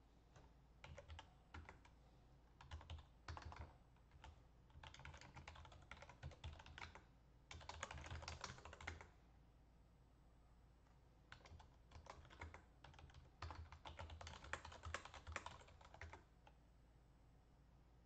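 Typing on a computer keyboard: quick runs of keystrokes, faint, with a break of about two seconds around the middle.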